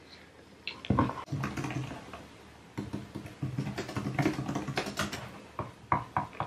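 Typing on a computer keyboard: a run of irregular key clicks, with a few louder knocks about a second in and near the end.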